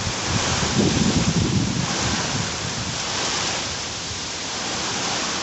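Heavy rain and gusting wind of a severe thunderstorm, a dense steady rush, with a low rumble swelling about a second in.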